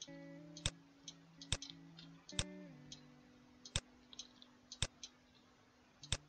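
Clicks of a computer mouse and keyboard, a sharp click roughly every second, some with a quieter click close by. Soft background guitar music plays underneath.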